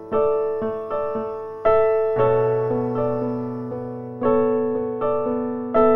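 Background piano music: notes and chords struck every half second or so and left to ring out.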